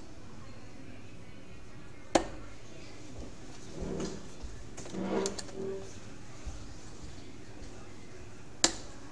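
Steel-tip darts striking a Winmau bristle dartboard: one sharp thud about two seconds in and another near the end. Quieter knocks and low voices come in between.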